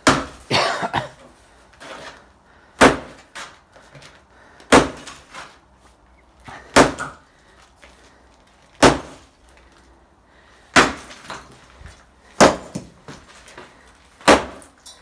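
Sledgehammer blows striking and breaking up a concrete beam, about eight heavy impacts roughly every two seconds. Each blow is followed by broken concrete chunks clattering.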